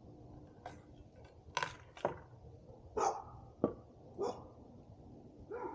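A dog barking several times in short, separate barks, with a wavering yelp starting near the end.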